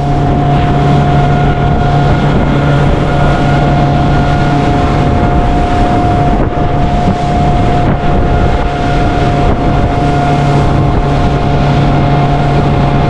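Motorboat engine running steadily at cruising speed, a constant drone, mixed with heavy wind buffeting on the microphone and water rushing past the hull.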